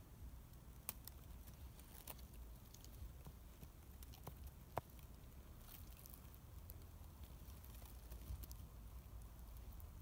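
Near silence outdoors: a faint low wind rumble with scattered small clicks and ticks, two sharper ones about a second in and near the middle.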